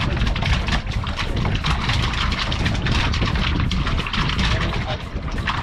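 Wind buffeting the microphone on an open boat at sea: a steady rushing hiss over a heavy, uneven low rumble.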